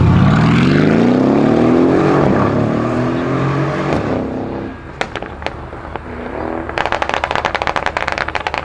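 Tuned Mercedes-Benz CLS63 AMG twin-turbo V8 accelerating hard, its exhaust note rising steeply in pitch and then fading as the car pulls away. A few sharp exhaust pops follow about five seconds in, and a rapid run of crackles near the end.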